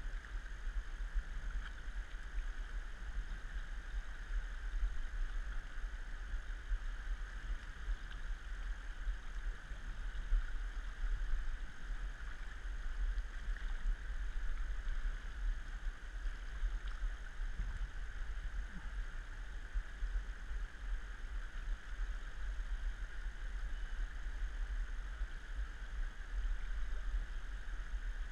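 Steady rushing of river current, with a constant low rumble underneath.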